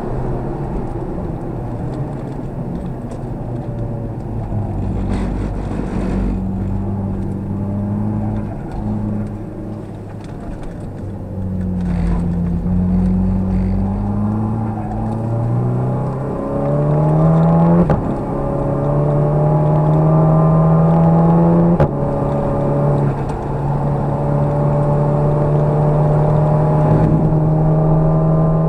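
Car engine heard from inside the cabin on a race track: revs fall as it slows for a turn, then climb hard under acceleration, with two sudden drops in pitch at upshifts in the second half before it holds steady at high revs, over road noise.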